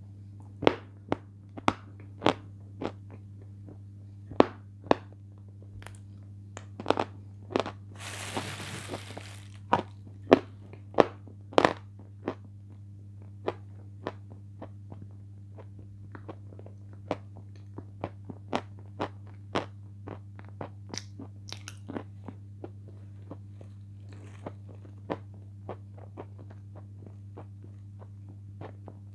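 Close-miked mouth sounds of eating a thick sweet cream: sharp wet clicks and smacks of the lips and tongue, many in the first dozen seconds and sparser after. A brief rustling hiss comes about eight seconds in, over a steady low hum.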